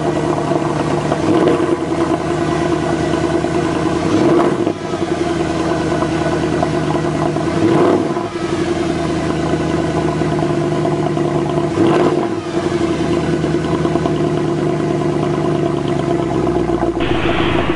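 Mercedes-AMG V8 exhaust idling on a cold engine, blipped three times about four seconds apart, each rev rising and falling quickly back to idle.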